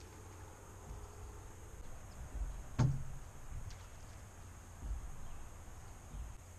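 A single sharp click about three seconds in, with a few soft low thumps before and after it, over a faint steady high-pitched hiss in the background.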